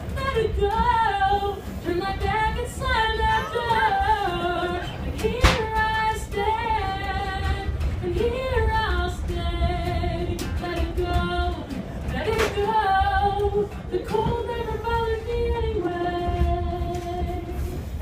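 A high voice singing a song with held notes, accompanied by acoustic guitar, over a steady low rumble; a single sharp knock cuts through about five and a half seconds in.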